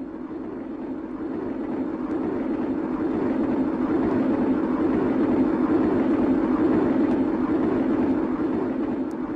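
Railway train running: a steady rumble that swells up over the first few seconds and eases a little near the end.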